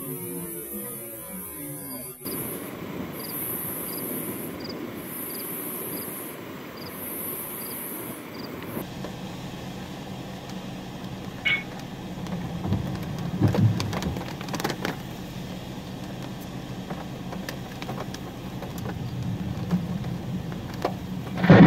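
Steady background noise of a vehicle cabin, with a low rumble of thunder and a few sharp cracks about two-thirds of the way through.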